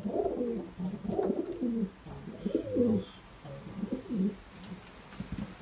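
Racing pigeons cooing in a loft: a run of low, bending coos over the first three seconds, then a few more about four seconds in.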